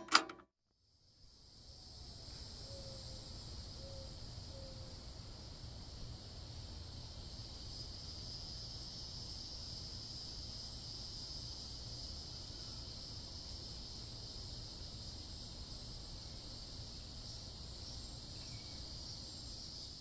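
A sharp click, then a steady chorus of insects, an even high-pitched shrilling that holds without a break, over a faint low rumble.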